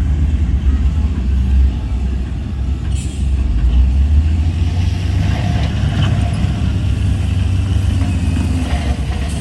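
Heavy diesel engine of earthmoving machinery running with a steady, deep rumble, with a brief click about three seconds in and some rattling in the second half.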